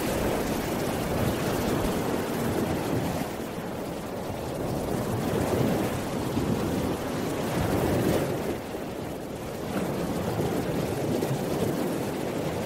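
Steady rushing noise without any clear tone or beat, swelling and easing every few seconds.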